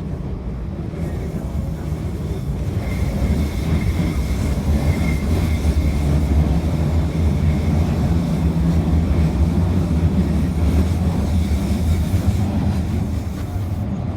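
London Underground train running, a loud steady rumble that builds over the first few seconds and eases off near the end, with a faint steady high whine above it through the middle.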